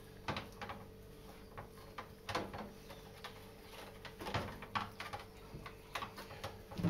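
Scattered light knocks and clicks as a rolled pork belly is handled and settled in a metal roasting tin on a gas stove. A faint steady hum runs underneath.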